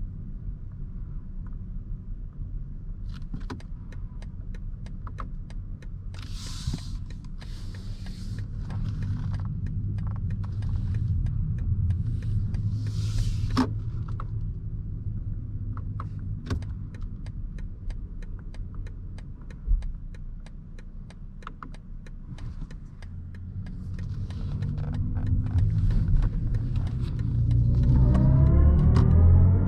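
Cabin sound of a 2023 BMW i7 xDrive60 electric sedan on the move: a steady low road rumble with many small clicks and a few short hisses. Near the end the loudness climbs and a synthetic electric drive tone rises in pitch as the car accelerates.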